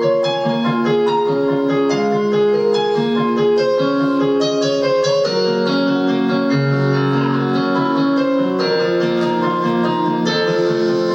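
Instrumental introduction of a song played on a keyboard with a piano sound: sustained chords under a melody line, at an even level.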